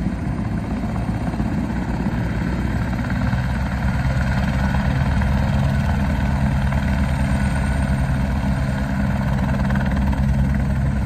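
Eurocopter AS350 police helicopter running on the ground before lift-off: the rapid chop of the main rotor over the turbine's drone, the low beat growing stronger a few seconds in and the whole sound getting slightly louder.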